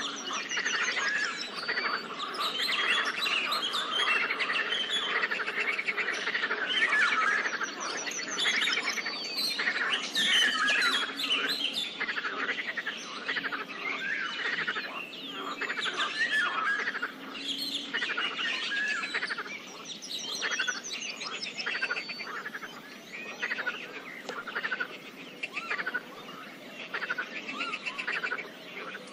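Pond soundscape of many birds chirping and calling over one another, with quick high trills, and frogs croaking underneath.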